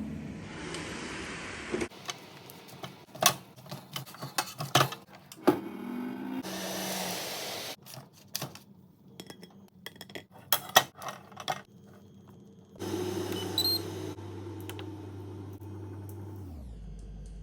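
Kitchen handling sounds: a run of sharp clinks and knocks of utensils and cookware, with a steady low hum starting about two-thirds of the way in.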